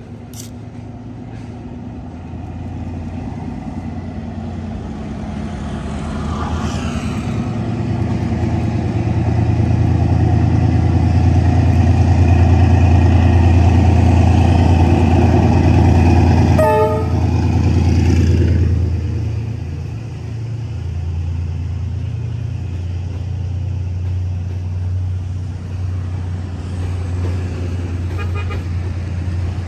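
A D19E diesel-electric locomotive approaches and passes with a loud, deep engine drone, and its horn gives one short toot as it goes by. The train's carriages then roll past steadily.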